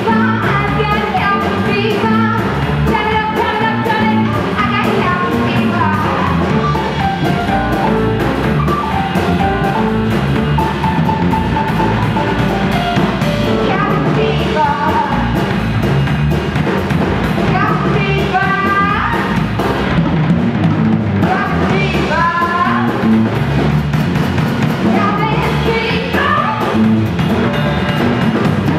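Live jazz band playing: drum kit and bass under a wandering lead melody.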